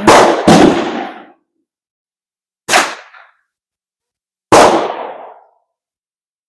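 Four gunshots on a shooting range: two close together right at the start, one about two and a half seconds in that is a little quieter, and one about four and a half seconds in, each sharp crack trailing off over about a second.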